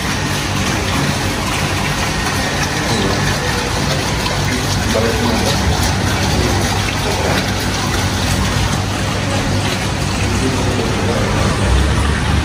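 Steady rushing noise with a low rumble underneath, even in level throughout.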